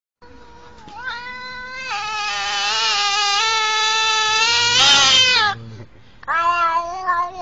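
Black-and-white domestic cat meowing: one very long, drawn-out meow lasting about five seconds, then a second, shorter meow starting about six seconds in.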